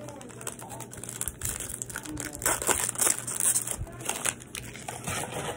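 A 2021 Bowman baseball card pack's wrapper being torn open and crumpled: a dense crinkling and crackling that grows louder about a second and a half in and is loudest around the middle.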